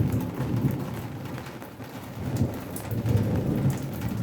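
Rain falling steadily, with scattered sharper drop hits and a low rumble underneath that swells and fades.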